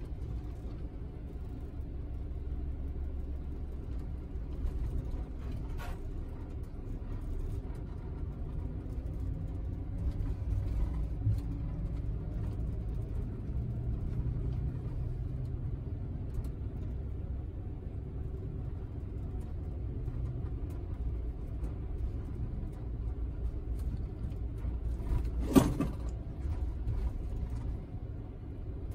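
Scania double-decker coach running at low speed, a steady low engine-and-road rumble heard inside the upper-deck cabin. One sharp knock comes a few seconds before the end.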